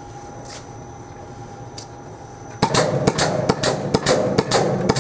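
A faint steady machine hum, then, about two and a half seconds in, a fast, slightly uneven run of sharp metallic clicks, about five or six a second.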